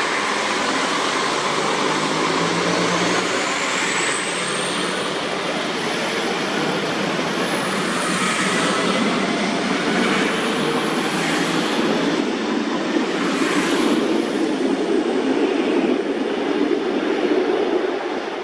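Alstom Coradia LINT 54 diesel multiple unit running past close by and pulling away: a steady rush of engine and running noise with a high whine that rises over the first several seconds and comes again later. The sound eases slightly near the end as the train recedes.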